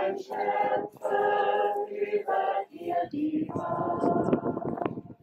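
Church choir singing unaccompanied, in held phrases with short breaks between them.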